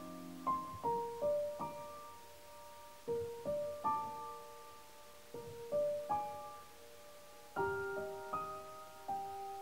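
Background music: slow, gentle solo piano, with single notes and chords struck one after another and left to ring out.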